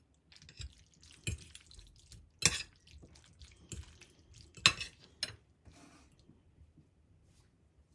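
A metal spoon and fork clink against a ceramic plate while tossing fettuccine in a thin sauce of butter, cheese and pasta water, with soft wet stirring between the clinks. There are about five sharp clinks, and they stop about six seconds in.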